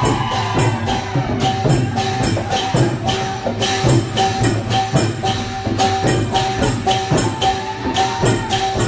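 Lively percussion band music: an even, fast beat of jingling or clashing strokes over a repeated pitched note and a low drum pulse.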